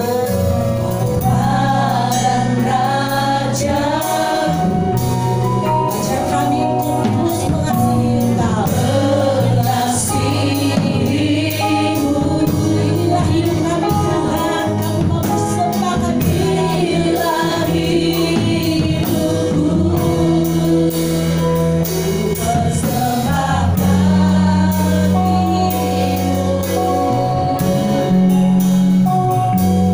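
Gospel worship song performed live: singers on microphones over an accompaniment of long held bass notes and chords.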